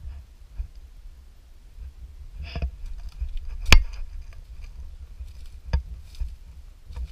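Footsteps on a dry forest trail, with a few sharp crunches or snaps; the loudest comes about halfway through. A low rumble underneath, from wind or handling on the microphone.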